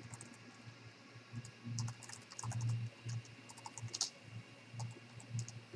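Computer keyboard typing: a run of quick, irregular key clicks.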